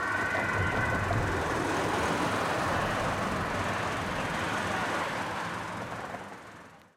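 Fire engines driving on an emergency run: a steady rumble of engines and tyres. A steady high tone, likely the tail of a siren, stops about a second in, and the vehicle noise fades out near the end.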